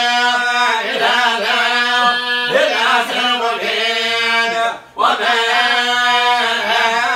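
A man chanting Arabic religious verses alone, in long held, ornamented notes, pausing briefly for breath about five seconds in.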